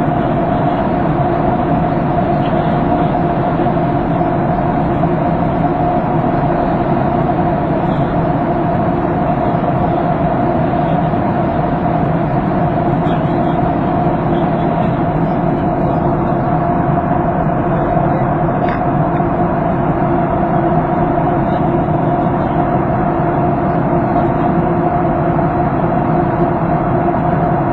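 Airliner cabin noise in flight: the steady drone of the jet engines and rushing air, with a constant hum running through it.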